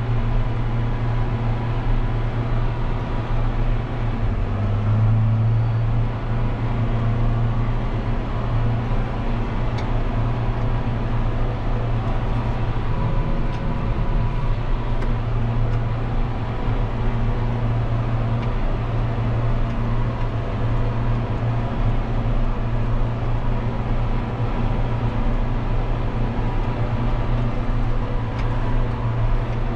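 John Deere 6140M tractor's four-cylinder diesel running steadily at about 1750 rpm under load, pulling a field cultivator, heard from inside the cab as a steady low drone.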